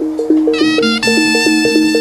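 Live jaranan music: a quick repeating melodic figure on pitched percussion, with a high sustained wind note entering about halfway and held.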